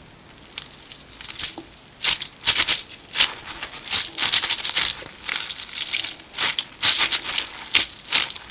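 Toys or small objects being handled, making irregular bursts of rattling.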